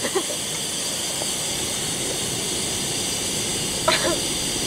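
Primus gas stove burner hissing steadily at full flame, turned up high. A short voice sound comes about four seconds in.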